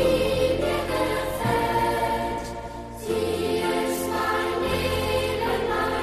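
Boys' choir singing a German folk song in sustained, legato phrases over piano accompaniment, with a brief breath between phrases about three seconds in.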